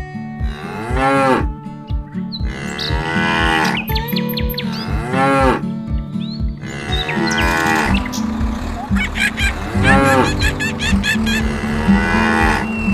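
Cartoon cow mooing several times, about every two seconds, each moo swelling up and falling back in pitch, over background music with a steady low beat.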